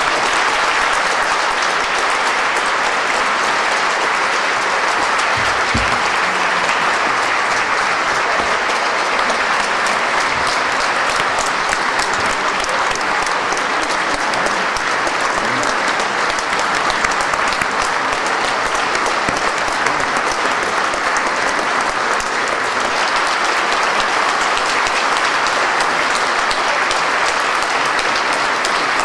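Large audience applauding in a concert hall: a dense, steady patter of clapping that keeps up without a break.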